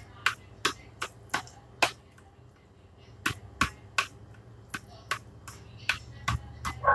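Knife chopping on a cutting board: sharp taps about two to three a second, pausing briefly about two seconds in, over a faint low steady hum.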